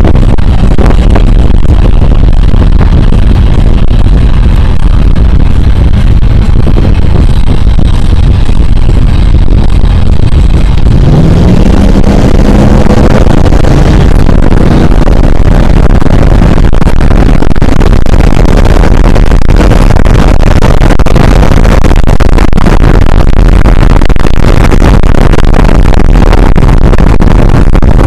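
Dodge Ram pickup driven hard at high speed, heard from inside the cab: loud, steady engine, road and wind noise. About eleven seconds in, the engine note climbs as the truck accelerates.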